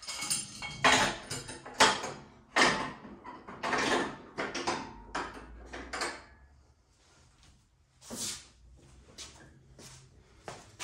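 Steel mower deck of a John Deere lawn tractor scraping and clunking as it is handled and worked into place under the tractor: a run of irregular scrapes and knocks, then a short lull and a few softer knocks near the end.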